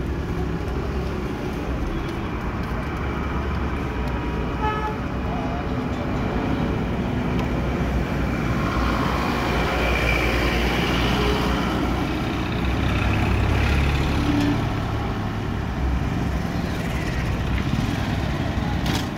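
Street traffic: vehicle engines running and passing, with a short horn toot about five seconds in and one engine coming up louder about two-thirds of the way through.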